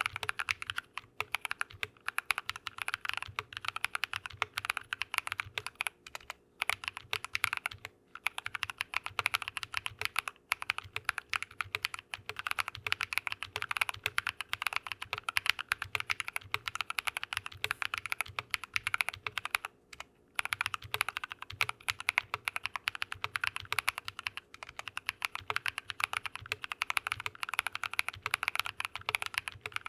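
Fast typing on a mechanical keyboard fitted with Drop + Invyr Holy Panda tactile switches: a dense run of keystroke clacks with a few short pauses.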